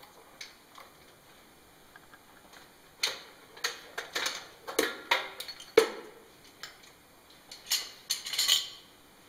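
Metal clamp ring being unlatched and lifted off the stainless steel body of a PIAB piFLOW vacuum conveyor: a run of sharp metallic clicks and clanks that starts about three seconds in. Near the end a cluster of clanks comes as the clamp ring is set down on the floor.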